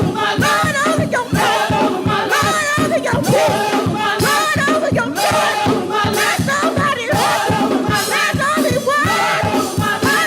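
Live gospel praise music: a group of voices singing over a band with a steady driving beat.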